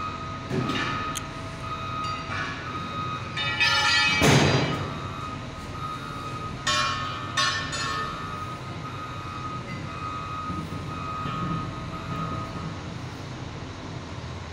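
Steel tire bar levering a tubeless truck tire off its steel rim: metal scraping and squealing against the rim, with several ringing clanks. The loudest is a sharp metal strike about four seconds in.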